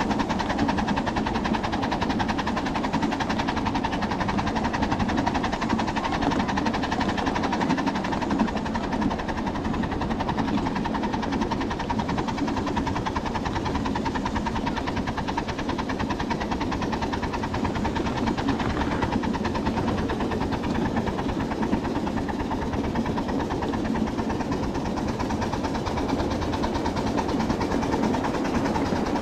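A 7½-inch gauge miniature riding train hauled by a live steam locomotive, running steadily along the track: a continuous, even rumble of its cars and small wheels rolling on the rails.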